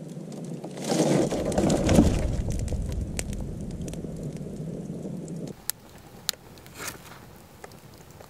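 Log campfire burning: a loud rush of noise for the first few seconds that stops abruptly, then quieter, with a few sharp crackles and pops from the burning wood.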